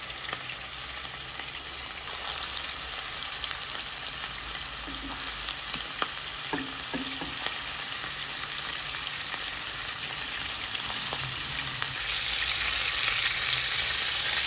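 Croquettes of ground beef wrapped in corn tortillas sizzling in shallow hot oil in a frying pan, a steady dense hiss with a few light clicks. The sizzle gets louder for the last couple of seconds.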